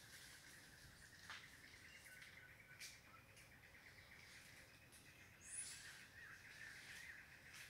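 Faint forest ambience: a steady high-pitched chorus of wild creatures, with one brief high call about five and a half seconds in and a couple of light clicks.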